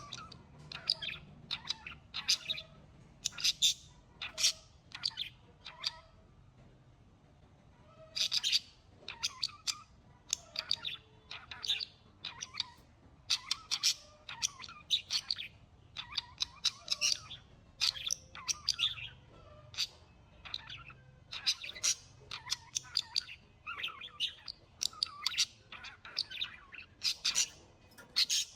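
Birds chirping: a long run of short, sharp, high calls, several a second, that stop for about two seconds about a quarter of the way in and then carry on.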